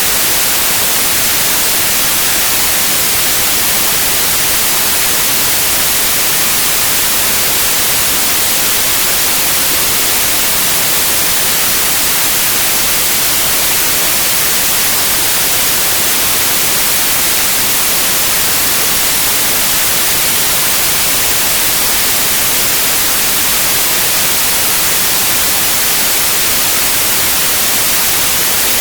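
Steady white noise: an even, unchanging hiss, brightest in the high end, with no breaks or events.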